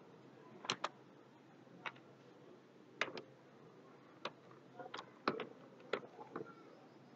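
Quiet, irregular clicks of a computer keyboard and mouse as a short expression is typed into a form field, with a quick double click about 0.7 s in and a faster run of keystrokes between about 5 and 6.5 s. Faint steady hiss underneath.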